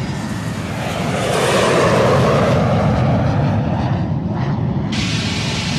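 A rushing engine noise, like an aircraft or traffic going by, swells over the first two seconds and then slowly fades away.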